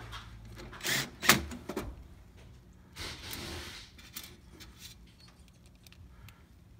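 Metallic clicks and clanks from tools and parts being handled at a sheet-metal air handler cabinet. They are loudest in a cluster about a second in, followed by a short rushing noise around three seconds in and a few fainter ticks.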